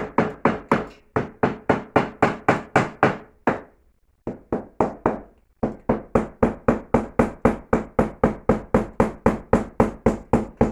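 Rapid hand-hammer blows on fireplace brickwork and mortar, about three to four a second, with two short breaks near the middle, as the cracked front wall of the firebox is knocked apart.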